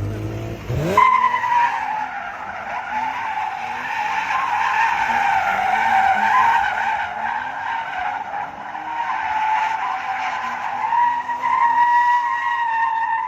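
BMW M3 E36 3.0's engine revs up sharply, then about a second in its tyres break into one long continuous screech. The engine keeps running faintly underneath the squeal.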